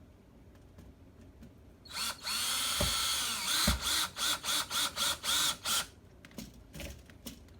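Power drill driving a screw: a steady run of about a second and a half, then about eight short quick bursts, followed by a few light clicks.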